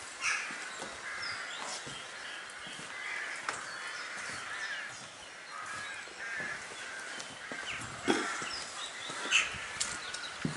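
Several crows calling repeatedly in short, chattering caws, mixed with footsteps on a wet wooden walkway and stone, with a couple of louder thuds about eight and nine seconds in.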